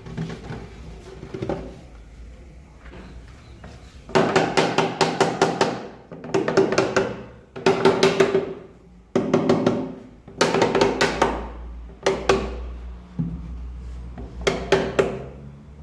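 A pneumatic pin nailer firing pins into MDF panels in rapid bursts of several shots, with short pauses between bursts, each shot a sharp crack with a ringing tone.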